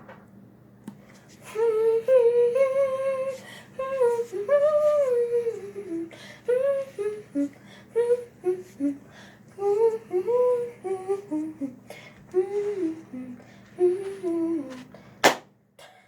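A girl humming a wandering tune in short phrases, followed by a sharp click near the end.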